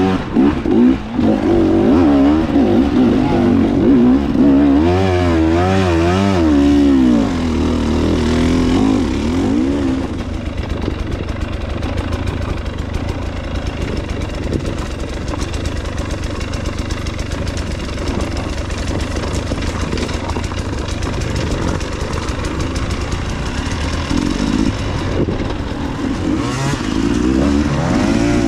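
Dirt bike engine being ridden on a trail, revving up and down in quick swells for the first several seconds, then running more evenly at lower revs through the middle, with the revving picking up again near the end.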